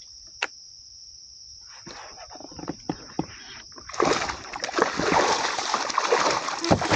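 A hooked largemouth bass thrashing at the surface beside the kayak, splashing loudly from about four seconds in, over a steady high chorus of crickets.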